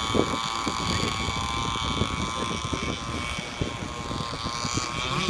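Zenoah 260 two-stroke gas engine of an RC deep-vee boat running at speed, a steady high-pitched buzz whose pitch dips and rises again near the end, with wind buffeting the microphone.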